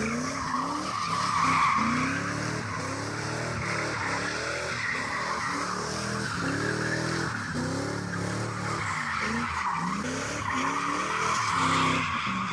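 1993–95 Ford Lightning F-150's 351 Windsor V8 revving up over and over, roughly once a second, while the rear tyres squeal through donuts.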